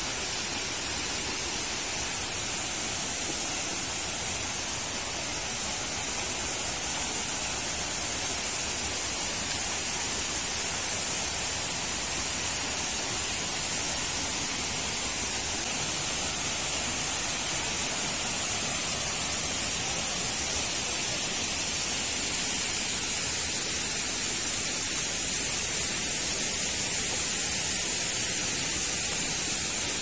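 Waterfall of Mantayupan Falls pouring down the cliff into its pool: a steady, even hiss of falling water, growing a little louder toward the end.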